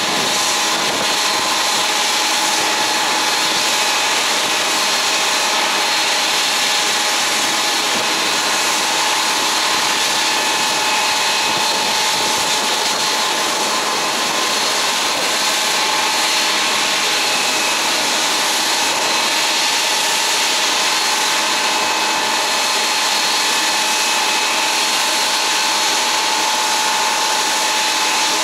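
Steady whine and hiss of airliner jet engines, a high-pitched rushing noise with a few held tones and no rise or fall.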